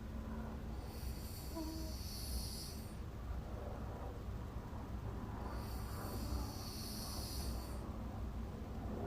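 A sleeping woman snoring: two long, breathy snores about five seconds apart, over a steady low hum.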